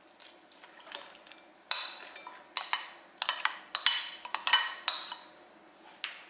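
Glass mixing bowl clinking: a quick series of sharp knocks and clinks with short ringing tones, the loudest in the middle seconds.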